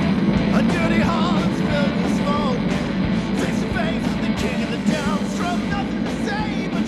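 Punk rock song playing as background music, loud and steady.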